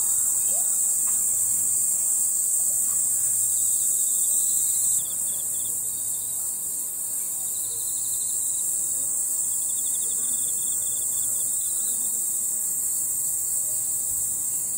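Steady, high-pitched chorus of insects, a continuous shrill drone with fainter pulsing trills beneath it; the level drops slightly about five seconds in.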